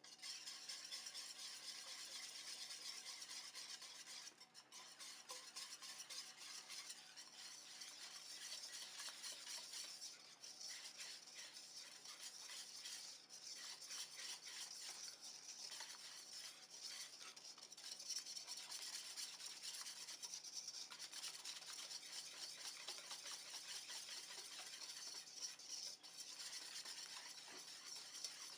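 A wire balloon whisk beating eggs and sugar in a stainless steel bowl: a fast, continuous scraping and clicking of the wires against the metal that starts abruptly. The mixture is being whisked until pale.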